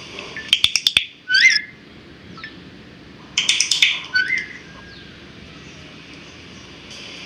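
A bird calling twice: each call a quick run of sharp clicks followed by a short chirp that slides down in pitch.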